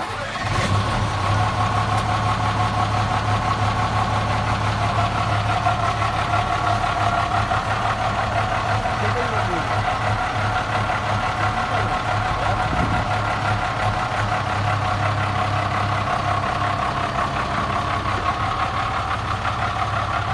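Star 266 military truck's six-cylinder diesel engine catching at the very start and then idling steadily.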